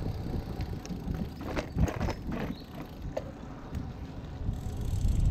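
Wind buffeting the microphone of a bike-mounted action camera while riding on a paved road, with steady tyre and road noise. A few sharp clicks and knocks come between about one and a half and four seconds in.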